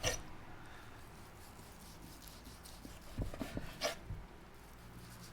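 Knife thinly slicing smoked roast beef on a cutting board: quiet slicing strokes, with a sharp knock at the start and a few light knocks about three to four seconds in.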